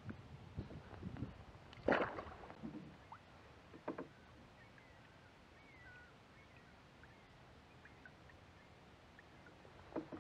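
Kayak and paddle being handled on the water: clunks and light water noise, with one loud sharp knock about two seconds in and a smaller one about four seconds in.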